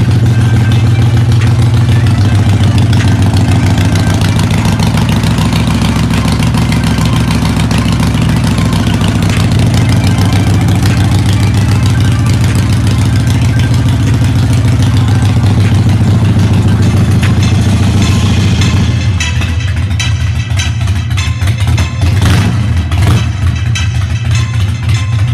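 Small motorcycle engine running loudly through a custom exhaust, with a steady rapid firing pulse. About three-quarters of the way through it drops to a lower, thinner idle.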